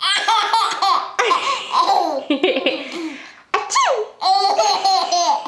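A nine-month-old baby laughing in breathy belly-laugh bursts at a pretend "achoo" sneeze, in two bouts with a short break in the middle.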